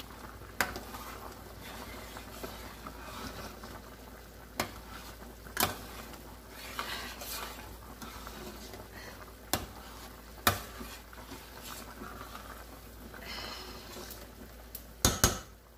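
A metal ladle stirring boiling goulash in a stainless-steel pot over a steady bubbling hiss, with sharp clinks of the ladle against the pot every few seconds and two quick loud ones near the end.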